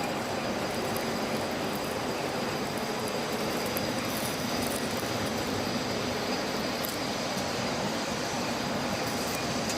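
A machine running steadily: constant mechanical noise with a thin, steady high whine over it.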